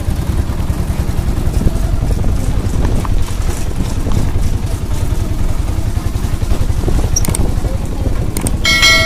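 A vehicle's engine running steadily while riding along a road, with rapid low pulsing. A short horn beep sounds near the end.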